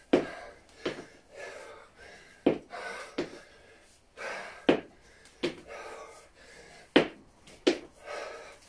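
A man breathing hard through kettlebell squat-to-overhead-press reps: four cycles, each a pair of short, sharp puffs of breath followed by a longer breath, about every two and a half seconds, in time with the lifts.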